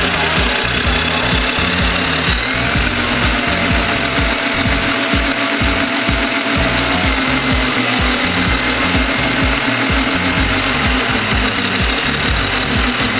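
Onboard drivetrain noise of an Axial Wraith 1/10-scale electric RC rock crawler driving on asphalt: its electric motor and gears whir and grind steadily, with a faint whine that rises and falls. A music track's bass line and beat play underneath.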